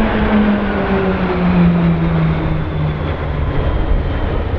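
Pilatus PC-21 turboprop trainers of the Roulettes flying past, their propeller drone falling steadily in pitch as they pass and draw away.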